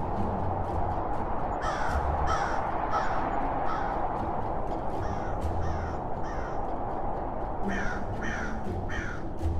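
Crows cawing: three runs of harsh, falling caws, four, then three, then three, about half a second apart, over a steady background hiss.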